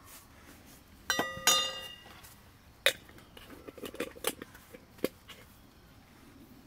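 A metal spoon clinking against a stainless steel tumbler while stirring coffee: two ringing clinks a little after a second in, then a few lighter taps and clicks.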